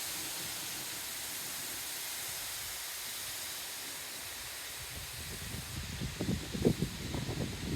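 Steady outdoor hiss, joined about five seconds in by irregular rustling and soft knocks that grow louder toward the end.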